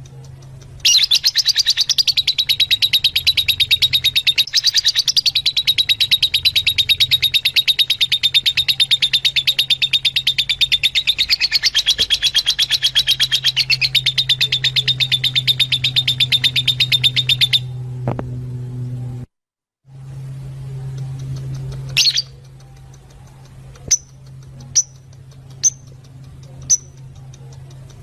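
Fischer's lovebirds chattering: a fast, unbroken stream of high chirps that stops abruptly about two-thirds of the way through, followed by a few single sharp chirps. A steady low hum runs underneath.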